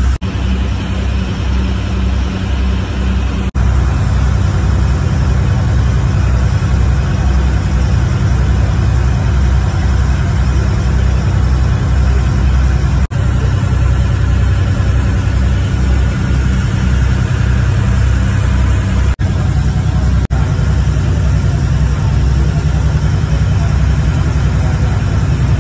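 Ferry's engine running steadily aboard the boat, a loud low drone mixed with the rush of water and wind, broken by a few short dropouts.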